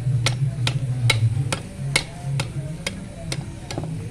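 Regular sharp taps or knocks, about two and a half a second, over a steady low hum.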